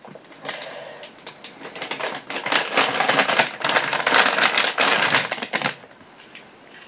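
Packaging being handled and unwrapped, crinkling and rustling with many small clicks, dying down near the end.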